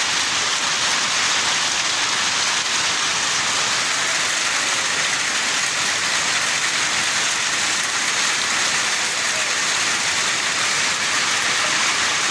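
Heavy rain from a thunderstorm falling steadily, a dense even hiss without a break.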